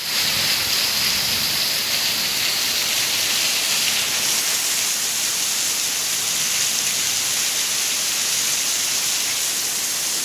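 Heavy rain pouring down, a steady, even hiss of a downpour.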